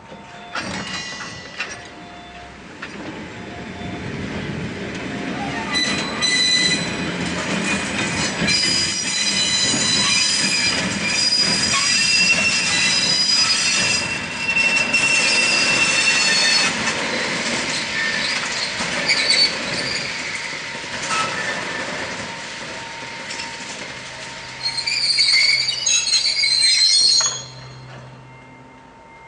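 Two ED45 electric locomotives and a boxcar rolling slowly through the station yard, steel wheels squealing in high tones on the rails and points. A final loud burst of squealing cuts off suddenly about 27 seconds in as the train comes to a stop.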